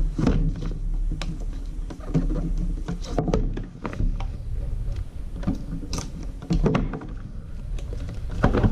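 Hands handling a GoPro camera's retail box and its plastic clamshell packaging: irregular clicks, taps and knocks, busiest near the end, over a steady low hum.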